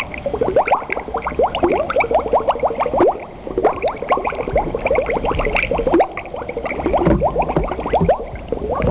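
Water bubbling and gurgling: a dense, continuous stream of small rising plinks over a low rumble, like running water through a trickle or outfall.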